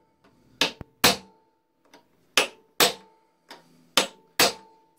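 Hammer blows on a steel rivet-heading tool (rivet snap) set on a rivet, peening it over an anvil into a round rivet head. There are six sharp metallic strikes in pairs about half a second apart, each with a short ring.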